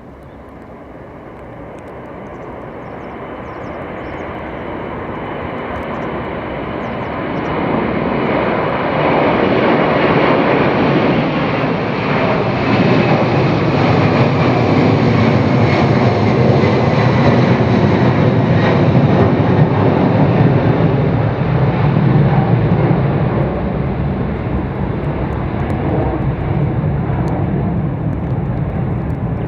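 Boeing 747-400's four jet engines, growing steadily louder as the jet approaches, passing close with loud jet noise and a whine that falls in pitch, then easing off slightly near the end.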